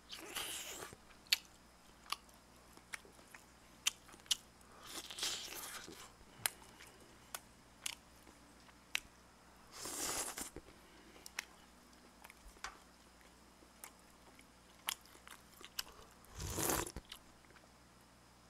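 A person eating close to a microphone: quiet chewing and mouth smacks with many sharp clicks, and a few louder breathy rushes of under a second about 5, 10 and 17 seconds in.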